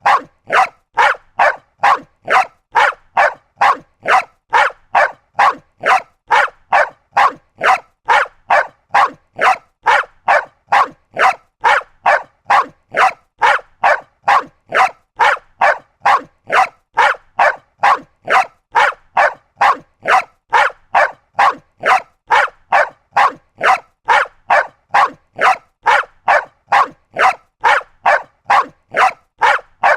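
Small dog barking over and over at an even pace, about two short barks a second.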